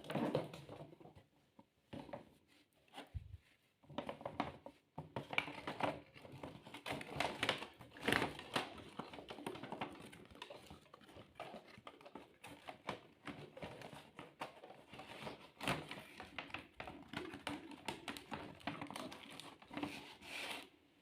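Plastic toy vehicles and their packaging being handled: irregular clicks, taps and rattles with some light crinkling.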